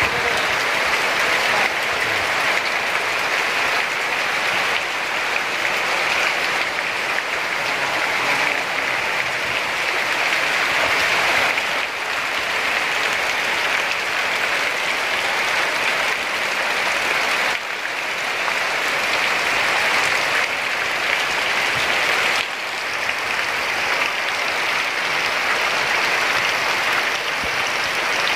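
Heavy rain pouring steadily on trees, yard and roofs: a dense, even hiss that dips briefly in level three times.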